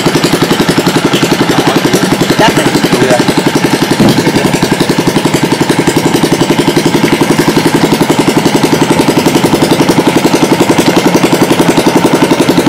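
Small boat engine running steadily at a constant speed, with an even, rapid pulse of about nine beats a second.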